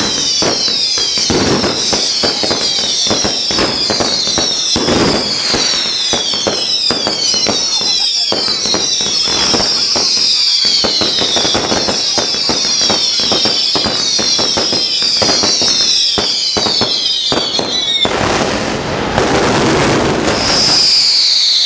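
Fireworks going off at close range: a dense run of short whistles, each falling in pitch and overlapping the next, over rapid bangs and crackle. About eighteen seconds in the whistles stop and a steadier crackling hiss takes over, with one last falling whistle near the end.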